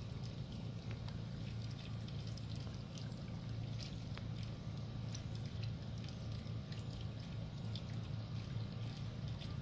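Water trickling and dripping into a garden pond, with many small splashes, over a steady low hum.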